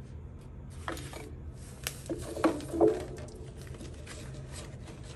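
Paper plates and a plastic water container being handled and set down on a tabletop: a few light, sharp clicks and knocks about 1, 2, 2.5 and 3 seconds in, over a low steady hum.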